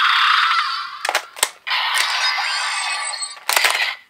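Electronic transformation sound effects and music played from the speaker of a Kamen Rider transformation belt toy, broken by sharp mechanical clicks about a second in and again near the end.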